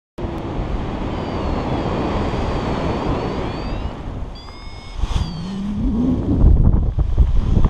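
Wind rushing over the camera microphone of a paraglider pilot spinning in a helicopter manoeuvre. It starts suddenly, dips about four seconds in, then comes back stronger, with faint thin whistling tones drifting above it.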